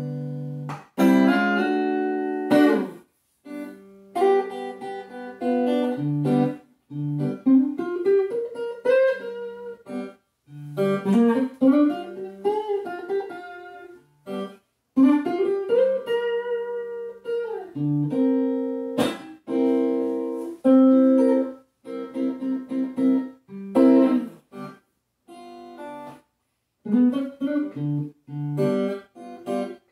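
Four-string La Flor Dominicana cigar box guitar tuned to open G, played as plucked notes and chords that ring out with short pauses between phrases. Several notes slide upward in pitch.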